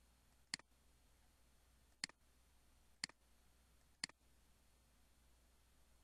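Four sharp computer mouse clicks, the first two about a second and a half apart and the rest about a second apart, over a faint low hum.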